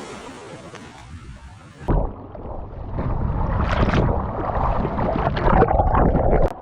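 Water and wind noise buffeting a camera's microphone. About two seconds in it cuts abruptly to a much louder, duller stretch of churning water noise.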